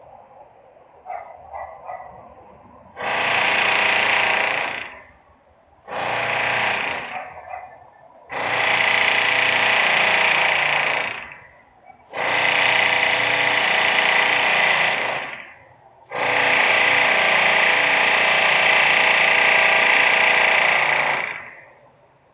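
Industrial power tool or machine running in five bursts of a few seconds each with short pauses between, the last and longest about five seconds.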